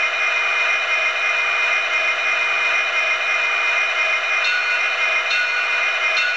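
HO scale SD60M model locomotive's sound decoder playing a steady diesel idle through its small speaker, thin and hissy. About four and a half seconds in, a short higher tone starts repeating about once a second.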